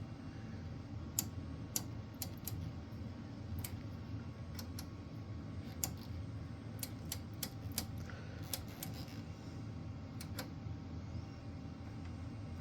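Irregular sharp clicks, about twenty in all, of an old oscilloscope's rotary switch knobs being turned through their detents during setup, over a low steady hum.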